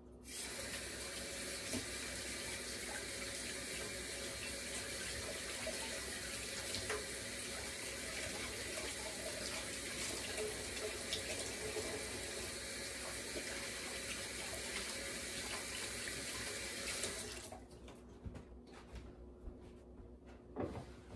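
Kitchen sink faucet running steadily while hands are washed under it, then shut off near the end.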